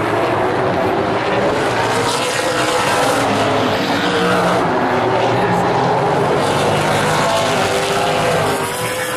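Super late model stock cars' V8 engines racing around a short oval track: several engines at once, their pitches rising and falling as they accelerate and pass.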